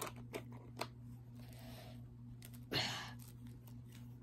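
Light clicks and taps of plastic Lego bricks as a built Lego figure is handled and turned, with a short noisy swish a little under three seconds in.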